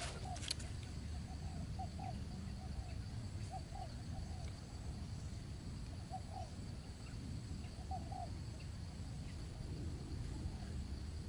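Outdoor ambience: insects sing in a steady high tone over a low steady rumble. A bird gives short, low calls, mostly in pairs, every couple of seconds until near the end.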